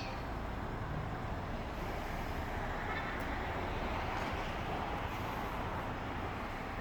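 Steady rushing rumble of a passing vehicle, swelling slightly midway.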